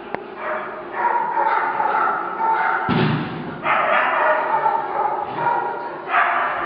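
A dog barking repeatedly while running an agility course, with a heavy thud about three seconds in.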